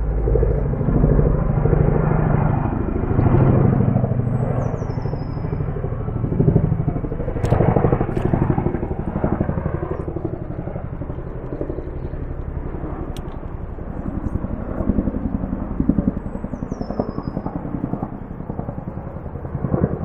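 Boeing CH-47 Chinook tandem-rotor helicopter flying over, a steady rapid thudding of the rotors, loudest in the first half and slowly fading.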